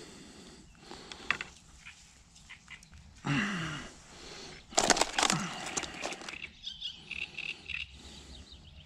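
Outdoor spring waterside ambience with small birds chirping, broken about three seconds in by a short noisy sound with a falling low pitch and, about five seconds in, by a brief loud rustling, crackling burst.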